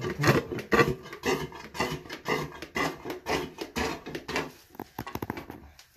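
Hand pump being worked in quick strokes, about two to three a second, drawing the water out of a toilet bowl through a hose. Near the end a quick run of clicks comes just before it stops.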